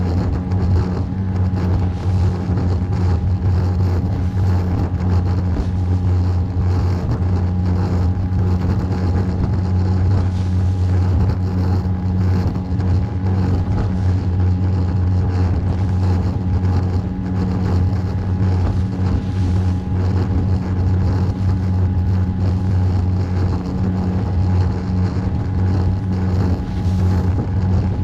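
Small boat's engine running steadily at cruising speed, with an even low hum.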